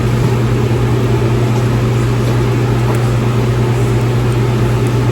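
A machine running steadily: a constant low hum with an even whirring noise above it.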